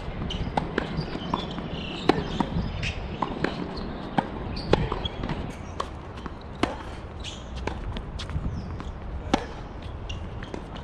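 Tennis rally on a hard court: a string of sharp knocks from racket strings striking the ball and the ball bouncing. The loudest hits come about every two to three seconds.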